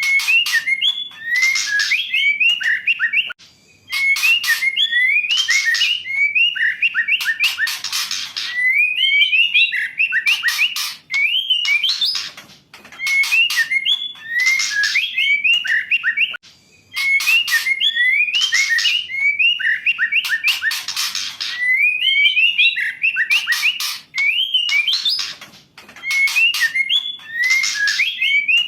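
Female white-rumped shama calling in repeated phrases of quick rising and falling whistles mixed with harsh rasping notes, broken by short pauses every few seconds.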